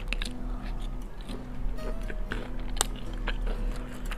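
Close-up biting and chewing of crisp honey-mustard fried chicken, with a scatter of short crunches, over soft background music.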